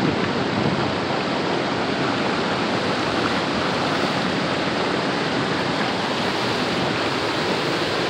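Steady, loud rush of fast-flowing water, a stream or falls running high after heavy rain.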